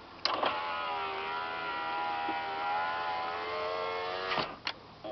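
Dodge Caravan's driver-door power window motor running: a steady whine that starts with a click about a quarter second in and stops abruptly with a click about four and a half seconds in.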